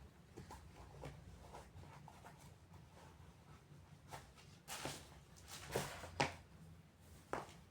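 Scattered handling noises: soft rustles and light knocks, with a longer rustle about five seconds in and a few sharp ticks after it.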